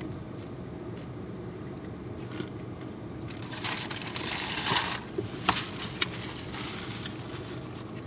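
Paper crinkling and crackling for a couple of seconds near the middle, followed by a few sharp small clicks and rustles, over a steady low hum inside the car.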